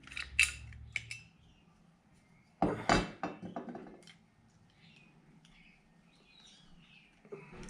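Small hard parts clinking and knocking as they are handled, with a few light clicks near the start and a louder cluster of knocks about three seconds in.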